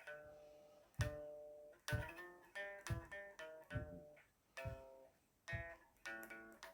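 Guitar being strummed in an instrumental passage, with a chord struck about once a second and left to ring out before the next.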